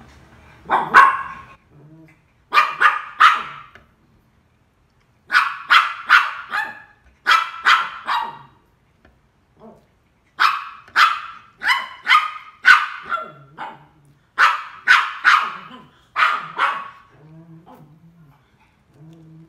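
A dog barking repeatedly, in quick runs of three to six barks with short pauses between them.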